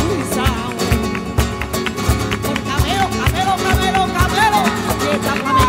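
Flamenco music: acoustic guitars strummed in a driving rhythm with sharp percussive accents, and a singer's voice wavering over it.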